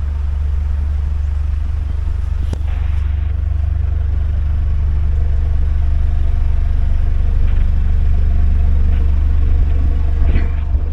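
A narrowboat's diesel engine running steadily with a deep, even rumble, rising slightly in level over the first few seconds.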